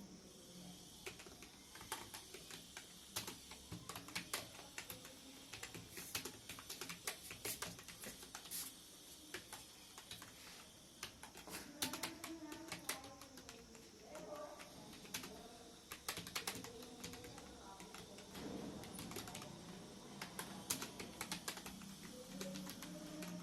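Typing on a computer keyboard: a fast, irregular run of key clicks during a typing-speed test.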